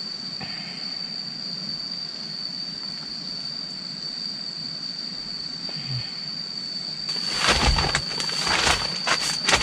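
An insect's steady, high-pitched drone. About seven seconds in, loud crinkling and rustling of a plastic tarp as someone shifts and sits up on it.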